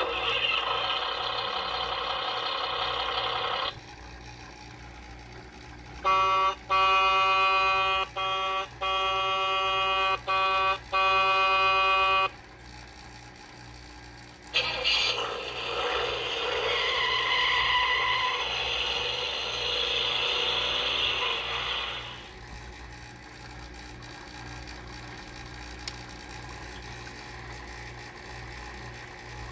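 Electronic sound effects from a Hess toy truck's small built-in speaker, set off by pressing the buttons on the cab. First a noisy rushing effect for about four seconds, then a steady several-note horn sounding in a run of short and long blasts, then another longer noisy effect with a brief tone in the middle.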